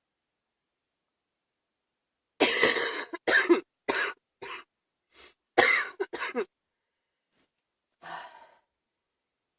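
A person with a chest cold coughing in a fit of about seven coughs in two quick clusters, starting about two and a half seconds in, followed by one softer short sound near the end.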